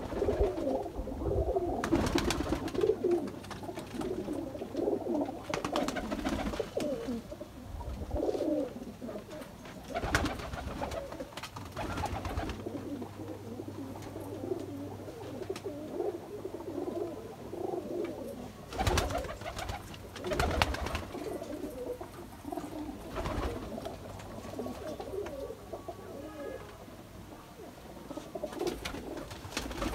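A flock of domestic pigeons cooing together, a continuous low chorus of overlapping coos. A handful of short, sharp clatters break in at intervals.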